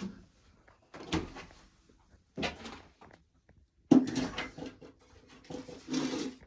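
Dry ears of corn being handled in a pail: a series of irregular knocks and rustles, the busiest and loudest cluster about four seconds in.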